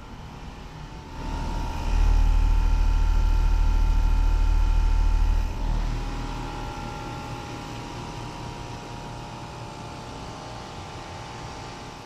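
Day & Night CVH8 variable-speed heat pump outdoor units running in cool mode: the condenser fan's steady rush with a steady high whine. A loud low rumble swells about a second in and drops back near six seconds.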